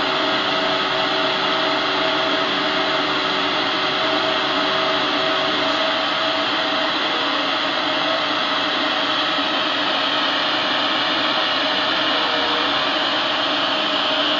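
Epilog Mini 24 35 W CO2 laser cutter running while cutting 3 mm wood: a steady rush of air with a few faint hum tones, some of which stop about six seconds in.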